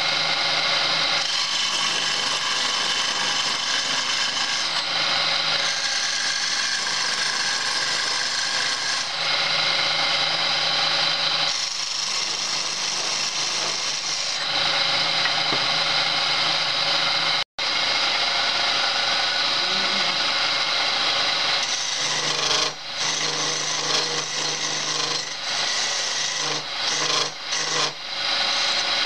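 Homemade wood lathe turning a wooden spindle while a hand-held turning chisel cuts it: a continuous hissing scrape of the tool on the spinning wood over a low motor hum, swelling and easing as the cut changes. It cuts out for an instant just past halfway, and near the end it turns choppy as the chisel comes on and off the work.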